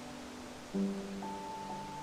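Soft instrumental background music: sustained notes, with a new chord coming in about three quarters of a second in and a high note just after.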